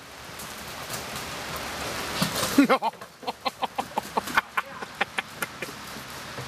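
Steady rain falling on wet ground. About two seconds in a goose gives a couple of honks, then a quick run of short calls, about five a second, lasting a couple of seconds.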